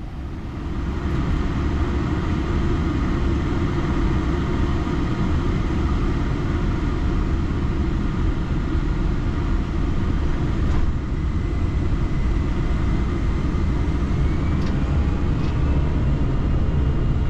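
Steady low rumbling noise of an Airbus A321 flight deck in flight, airflow and engine noise with no clear events. It comes up in level about a second in.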